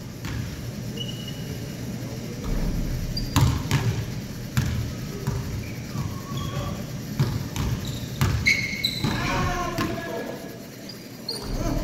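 A basketball is dribbled and bounced on a hardwood gym floor, sounding as a few irregular sharp thuds that echo around the hall. Short high sneaker squeaks come in between, and players call out briefly near the end.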